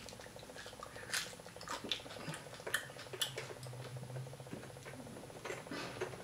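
Quiet eating sounds: soft chewing and the small crackles of crispy fried croaker fish being picked apart with fingers, in scattered short clicks at irregular moments.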